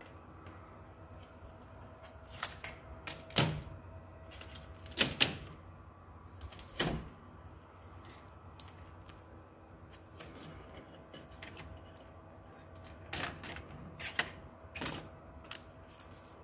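Packing tape being peeled off a printer's plastic body in a few short rips, in two groups with a pause between, with light clicks and handling noise in the gaps.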